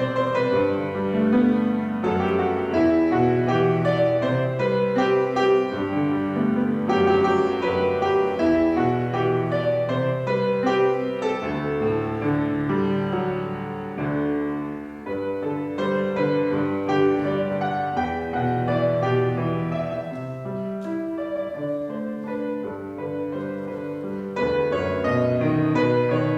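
Piano playing a well-known Chinese song, a melody over held chords.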